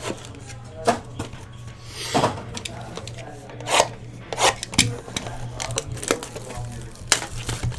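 Trading cards and their packaging handled on a table: irregular taps, clicks and sliding rubs, with one louder swish about two seconds in. A steady low hum runs underneath.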